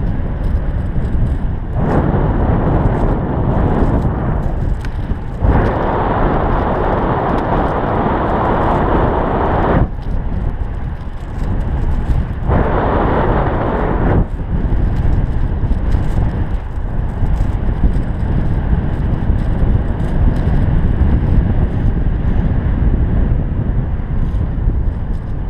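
Airflow buffeting the camera microphone during a paraglider flight: a loud, steady low rumble, with stretches of brighter hissing at about two, six and thirteen seconds in.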